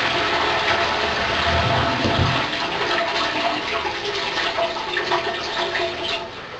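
Toilet flushing: water rushing from the cistern into the bowl, dropping away about six seconds in.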